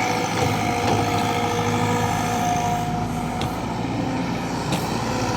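CAT excavator's diesel engine running steadily under load, with a low rumble and a held steady tone over it.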